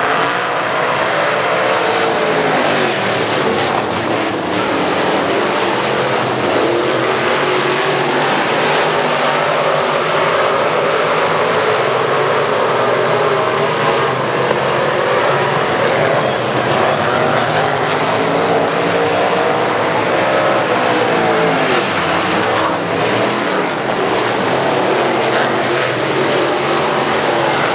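Limited Sportsman dirt-track race cars running laps together, the engines revving up and falling off in pitch over and over as they go through the turns and down the straights.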